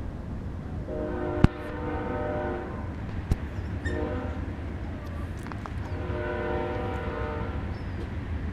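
A horn sounding three times: a long blast, a short one, then another long blast, each one steady in pitch with several notes together. A sharp click cuts in during the first blast.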